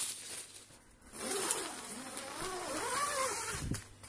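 Nylon tent door zip being pulled along: a rasp whose pitch rises and falls with the speed of the pull, with tent fabric rustling before it. A short knock near the end.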